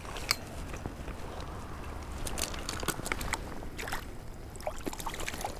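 Shallow stream water sloshing around wading boots, with scattered sharp clicks and knocks of stones shifting on a wet, rocky streambed.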